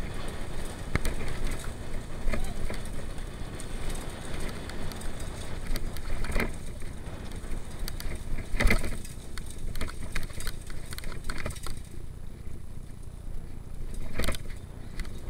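Mountain bike riding fast down a dirt singletrack: a steady rumble from the tyres and ride, broken by frequent rattles and knocks as the bike and camera mount jolt over bumps. The hardest knock comes a little past halfway, with another near the end, and the rumble eases somewhat in the last few seconds.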